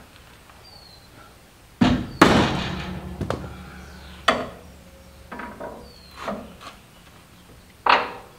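Steel tools and a pry bar clanking against a truck's steel frame and crossmember while a trailing arm is worked into its mount. Two loud metal clangs come about two seconds in, and the second rings on for a couple of seconds. A string of lighter metal knocks follows.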